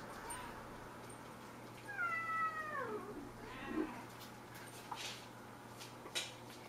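Seven-week-old Cornish Rex kitten meowing: one long, high call about two seconds in that slides down in pitch, after a faint short mew near the start. A few light clicks follow later.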